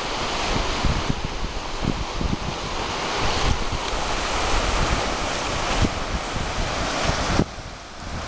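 Sea surf washing on the beach, with wind buffeting the microphone in gusty low rumbles; the sound drops off abruptly near the end.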